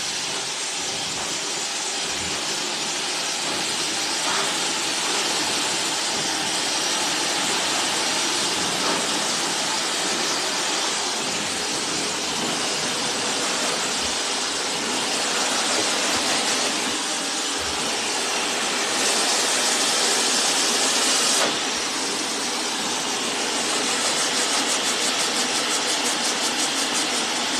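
Hair dryer blowing with a steady rush of air. It gets louder and brighter for a couple of seconds about two-thirds of the way through, then drops back suddenly.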